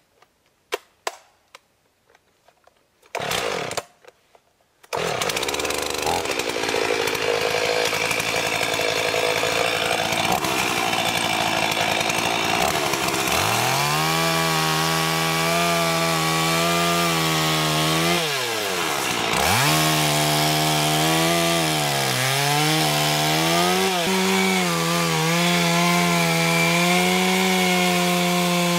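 Two-stroke chainsaw firing in two short bursts, then running continuously at high revs from about five seconds in while cutting the face notch in a fir trunk. Partway through, its engine note steadies under load and repeatedly sags and recovers as the chain bites, with one deep dip and climb back about two-thirds of the way through.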